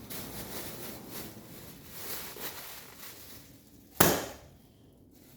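Plastic shopping bag crinkling as it is handled, then a single sharp crack about four seconds in.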